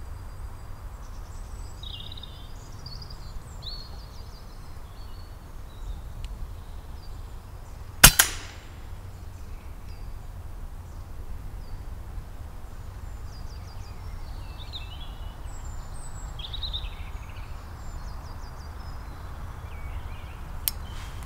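A single shot from an FX Impact Mk2 PCP air rifle about eight seconds in: a sharp crack with a second short crack right after it, the loudest thing heard. Small woodland birds chirp and sing throughout over a low steady rumble.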